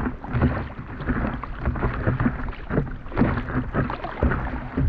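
Double-bladed paddle strokes splashing in choppy lake water, with water slapping and lapping against an inflatable paddleboard in irregular splashes.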